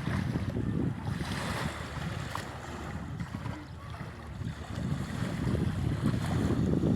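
Wind buffeting the microphone, a low rumble that swells and eases in gusts every second or so.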